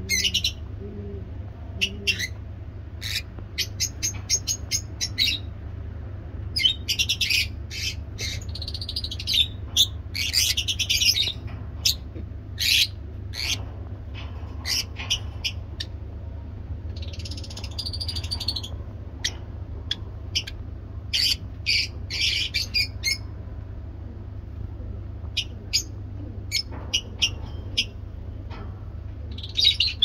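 Several caged lovebirds chirping and squawking: sharp, high calls, singly and in quick chattering runs, over a steady low hum.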